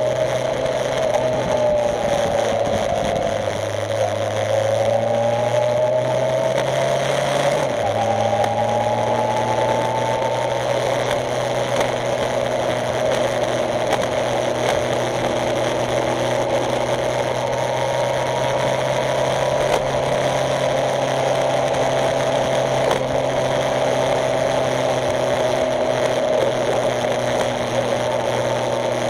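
Motorcycle engine running steadily as the bike rides along, picked up close by the camera mounted on the motorcycle; the engine note shifts in pitch about eight seconds in.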